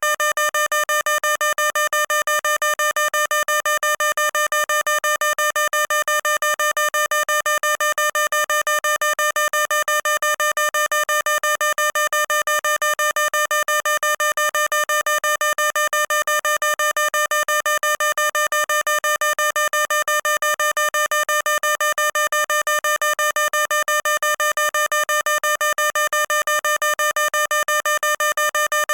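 Fire alarm sounding a rapid, unbroken run of electronic beeps, several a second, all on one steady pitch.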